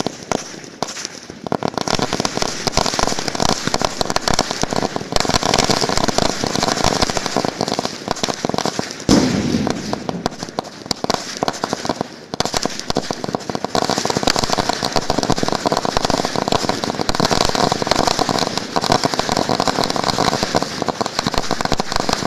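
A 2,000-cracker bijli ladi, a long string of small firecrackers, going off in a dense, unbroken rapid-fire crackle of small bangs that starts abruptly.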